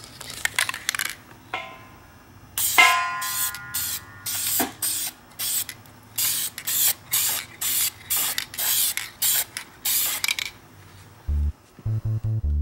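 Aerosol can of Clear Guard lacquer spraying a clear coat onto a copper sink, in a rapid series of short hisses. Music comes in near the end.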